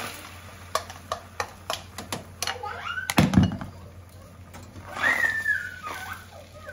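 A string of light knocks and clicks, with a heavier low thump about three seconds in. Two short high vocal sounds also come through: a brief rising one just before the thump and a longer one near the end that rises and then falls.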